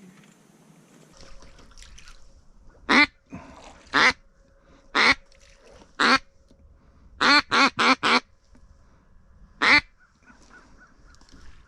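Loud, close duck quacks in mallard style: single quacks about a second apart, then a quick run of four, then one last quack.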